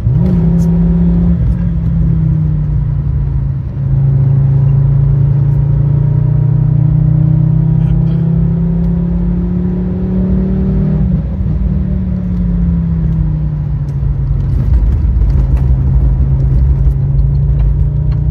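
Fiat Stilo Abarth 2.4 20V inline five-cylinder engine running under way, pulling steadily. There is a brief dip in level about four seconds in, and the revs fall away around eleven seconds in before climbing again near the end.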